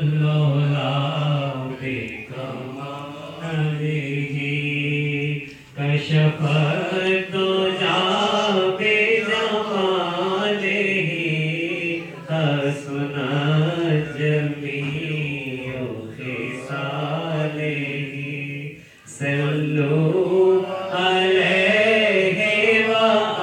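Unaccompanied naat, an Urdu devotional poem in praise of the Prophet, sung by a man in a slow, melismatic chant through a microphone. A steady low drone runs beneath the melody. The singing breaks briefly for breaths about 2 and 6 seconds in and again near 19 seconds.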